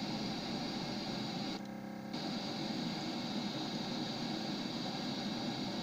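Steady hiss of radio static from a software-defined radio receiver's demodulated audio, tuned across the UHF professional band between signals; about one and a half seconds in, the hiss briefly dulls and then returns.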